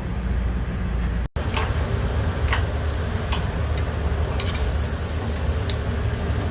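Scattered sharp clicks and taps of cooking utensils on a grill, about eight in a few seconds, over a steady low hum.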